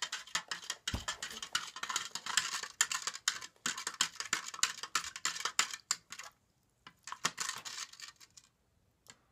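Plastic spoon stirring borax into water in a clear plastic cup, a rapid run of clicks and scrapes as it knocks against the cup's sides while the borax dissolves. It pauses briefly about six seconds in, resumes, and stops near the end.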